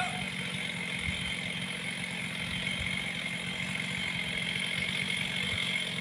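Chainsaw engine running steadily at an even pitch, heard from a distance.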